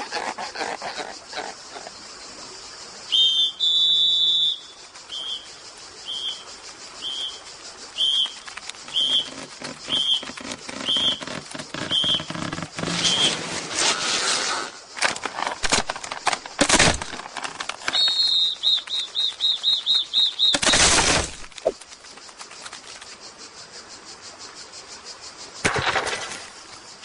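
Animated cartoon sound effects. A high whistle-like tone is followed by short high chirps about once a second, then several whooshes and a warbling high trill.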